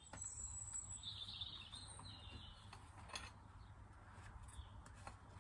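Faint bird chirps in the background over a quiet low hum, with a couple of soft clicks.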